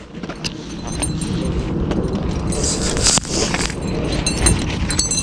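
Close rubbing and rustling as the camera presses against a pony's neck and bridle, with a few light clicks and jingles from the bridle's metal buckles and bit rings.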